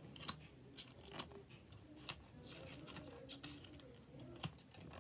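Thin aluminium foil crinkling as it is wrapped and squeezed by hand around a pen, in scattered soft crackles and clicks.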